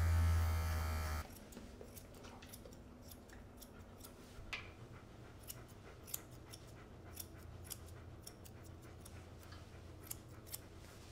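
Electric pet clippers buzzing on paw fur, switched off about a second in. Then grooming scissors snipping the fur around a dog's paw: many quick, quiet snips at an irregular pace.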